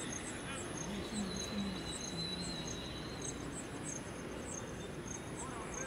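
An insect chirping, short high chirps about twice a second, over steady outdoor background noise.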